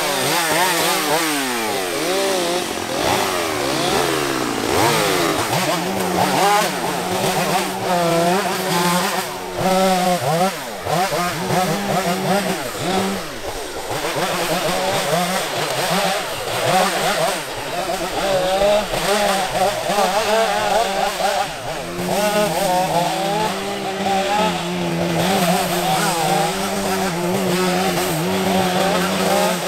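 Stihl MS231 two-stroke chainsaw limbing felled pine trunks. The engine revs up and drops back again and again as branches are cut off, with short stretches at a steadier lower speed in between.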